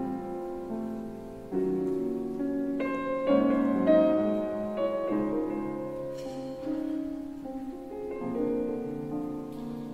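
Solo piano music: slow, held chords with single notes struck over them.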